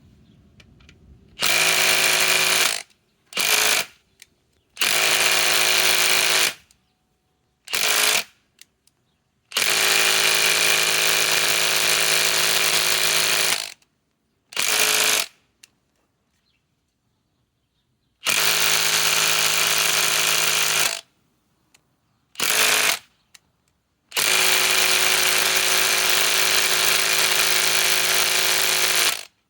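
Bosch GDS18V-330C 18-volt mid-torque cordless impact wrench hammering on a large lag screw in nine bursts, some long and some brief pulses of the trigger. The lag resists and does not drive home.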